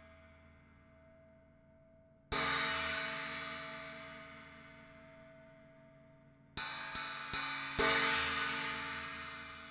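Handmade B20 bronze cymbal struck and left to ring out. It is hit once a little over two seconds in, then four times in quick succession a few seconds later, the last hit the loudest, each with a long, slowly fading shimmer.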